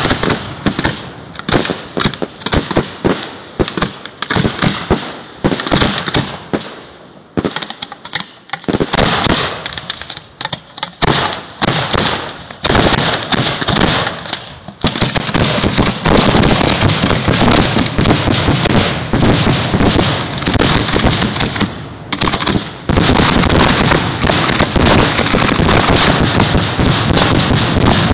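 Firework display mortars firing the grand finale at close range: shells launching and bursting in quick succession, many sharp bangs overlapping. Short lulls come in the first half, then from about halfway the reports merge into an almost unbroken barrage.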